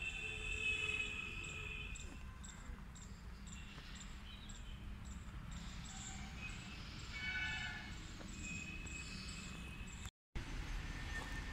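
Outdoor background noise: a steady low rumble with brief high chirps near the start and again about seven seconds in. The sound cuts out for a moment near the end.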